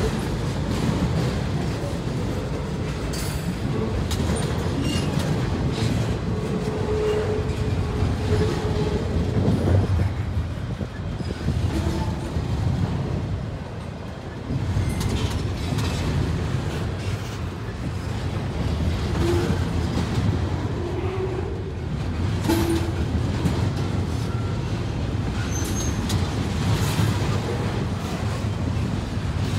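Norfolk Southern intermodal train's double-stack container well cars rolling past: a steady rumble of steel wheels on the rails, with a few brief, faint wheel squeals in the first and second halves.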